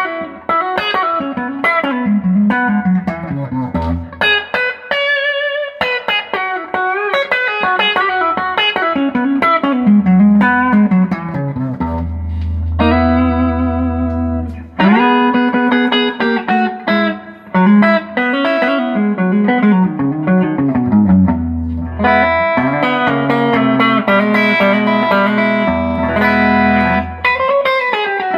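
Electric guitar played through an Opt Comp compressor pedal: single-note runs mixed with chords, some held and ringing out.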